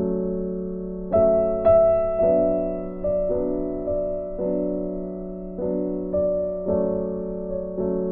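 Background piano music: a slow, gentle melody of single notes over held chords. A new note is struck about every half second to a second and dies away, and the two loudest notes come about a second in.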